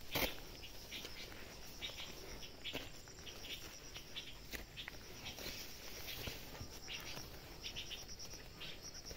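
Insects chirping in short repeated pulses, with a few scattered footsteps and rustles through dry undergrowth.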